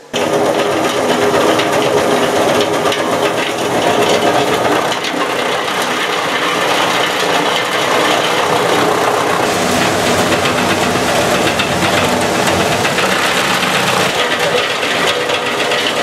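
Motorised grass chopper (chaff cutter) running steadily while grass stalks are fed into it and cut into feed. A steady machine hum sits under a dense, rapid rattle of chopping.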